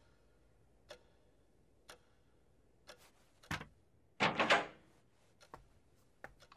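A clock ticking faintly about once a second, then a thump about three and a half seconds in and a louder, brief rustling noise just after.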